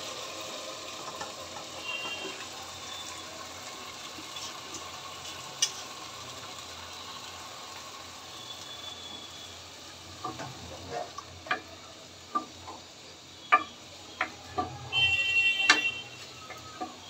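Yogurt-marinated chicken sizzling in hot spiced onion masala in a pot, a steady frying hiss. In the second half a wooden spoon stirs it, knocking and scraping against the pot several times.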